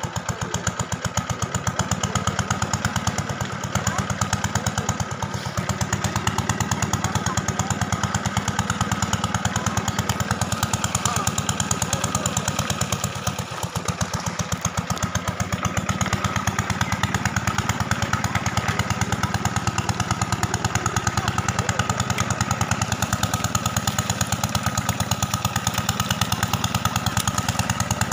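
Small engine of a water pump running steadily at an even, rapid beat.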